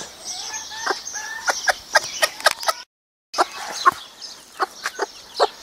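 Broody bantam hen clucking in many short, quick calls, with a high cheeping of chicks behind her. The sound drops out for about half a second near the middle.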